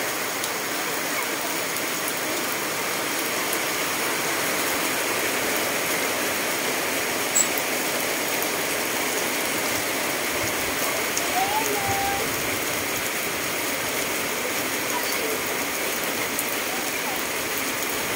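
Heavy typhoon rain falling steadily on leaves, ground and puddles, an even hiss that does not let up.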